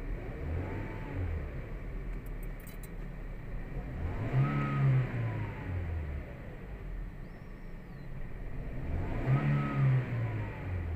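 Toyota Vios 1NR four-cylinder engine revved three times from idle, a small blip about a second in and two stronger revs around four and nine seconds in, each rising and falling back. The engine has a misfire that the scanner reads on cylinder 3, which the mechanic puts down to the spark plug or ignition coil.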